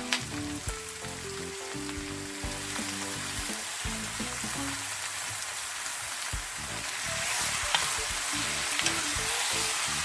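Raw beef sizzling in hot oil in a frying pan with onions and whole spices. The sizzle is steady and grows a little louder about seven seconds in, with a few sharp clicks.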